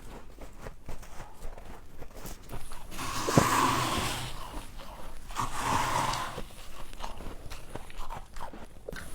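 Close-up crunching and chewing of humidifier frost: a steady run of small crackles, with two louder, longer crunches near the middle.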